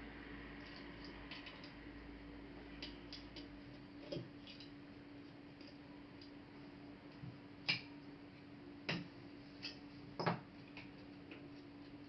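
Scattered light clicks and taps of plastic and metal laptop parts and small tools being handled, with a few sharper clicks in the second half, over a faint steady hum.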